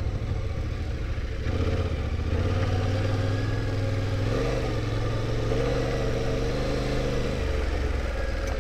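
Adventure motorcycle's engine running while it is ridden through soft sand ruts. The engine note shifts about halfway through and again near the end as the throttle changes.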